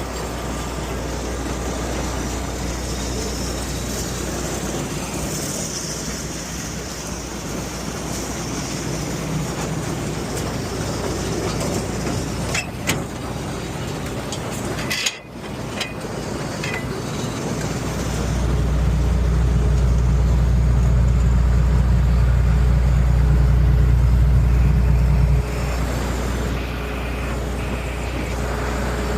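Combine's diesel engine running while parked, heard from outside the cab with wind on the microphone. The engine is running warm, its radiator probably clogged with trash blown in by the wind. There is a brief break about halfway through, and a heavier low rumble for several seconds near the end.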